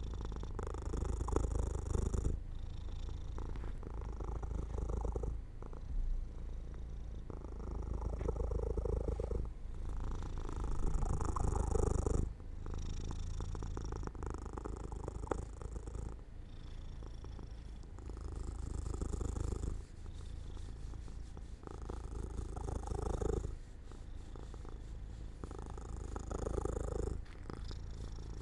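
Domestic cat purring close to the microphone as it drifts off to sleep. The purr is steady but changes every couple of seconds as it alternates between in-breath and out-breath.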